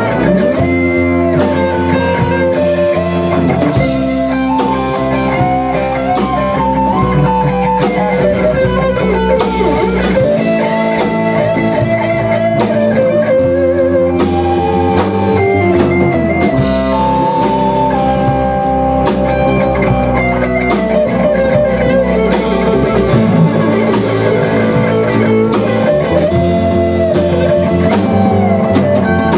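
Rock band playing in a rehearsal room: electric guitars with bent notes over bass guitar and a drum kit keeping a steady beat.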